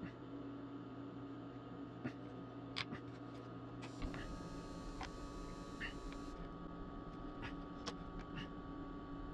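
Light scattered clicks and taps of hands handling clay and sculpting tools on a wooden board, over a steady low electrical hum. A brief soft hiss comes in about four seconds in and stops about two seconds later.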